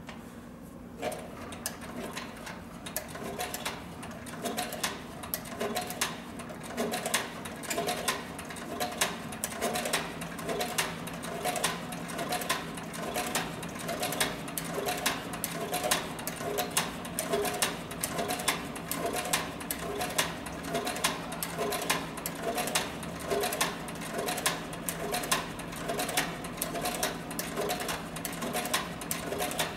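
Cowboy CB4500 heavy-duty triple-feed harness stitcher, driven by a DC servo motor through a gear reducer, sewing slowly through four layers of 12–14 oz saddle skirting leather. It starts about a second in and runs on as an even rhythm of stitch strokes, about one and a half a second, over a steady motor hum.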